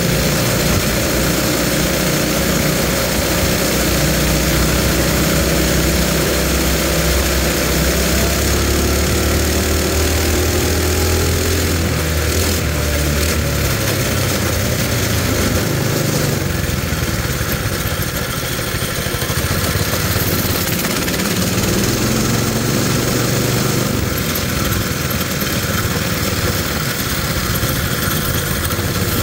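Coleman mini bike's small single-cylinder four-stroke engine running under way, its pitch climbing in the first half as it speeds up, with wind rushing over the microphone.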